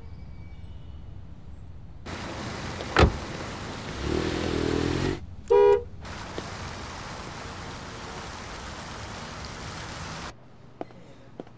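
A car horn gives one short, loud honk about five and a half seconds in, just after a lower buzzing tone. A sharp bang sounds about three seconds in, over a steady street noise that cuts out near the end.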